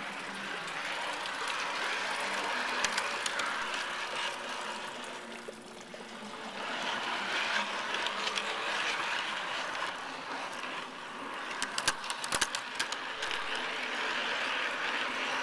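G scale model train running on garden track: a steady rolling rattle of wheels and motor that dips briefly about six seconds in and builds again, with a quick run of sharp clicks about twelve seconds in.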